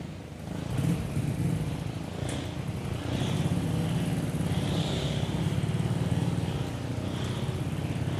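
A small engine running steadily, a low rapid pulsing that grows louder about a second in and then holds.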